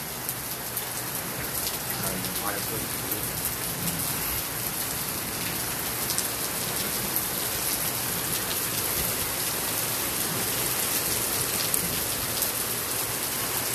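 Steady rain falling and spattering on surfaces, with many small drop ticks through a constant hiss.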